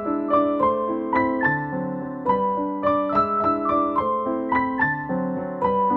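Background piano music: a calm melody of struck notes, about three a second, over sustained lower notes.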